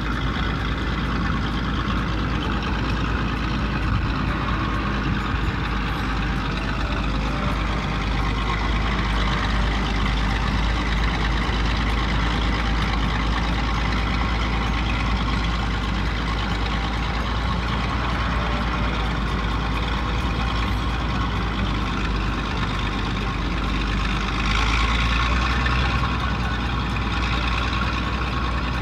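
Truck engine sound effect running steadily. It starts abruptly and cuts off abruptly at the end.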